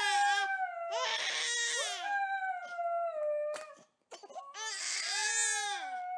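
A baby crying while a small white terrier howls along with her, in three long wailing bouts with short breaks between, the long notes sliding slowly down in pitch.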